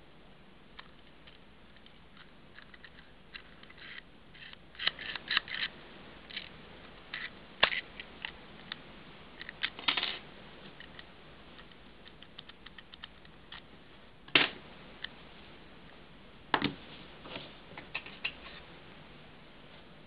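Steel lock pick and tension wrench working the small keyway of a Master Lock 1525 combination padlock: irregular faint clicks and scrapes of metal on metal as the pins are picked, with several louder clicking bursts of the lock being handled.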